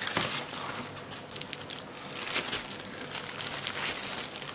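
Clear plastic packaging crinkling as a new laptop keyboard is pulled out of its wrapping, with a few sharper crackles.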